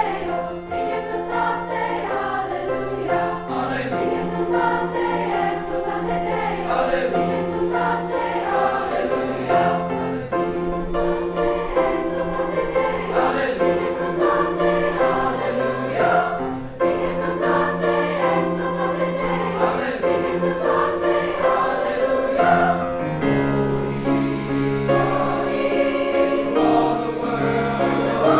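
Mixed youth choir singing in parts, with piano accompaniment. The lower voices come in more strongly near the end.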